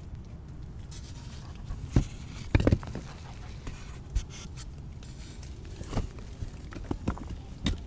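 A hand squeezing and pressing powder-dusted gym chalk blocks, dusted with baby powder and cornstarch, making a scatter of crisp crunches and soft scrapes. The loudest crunches come about two to three seconds in, with more spread through the rest, over a steady low hum.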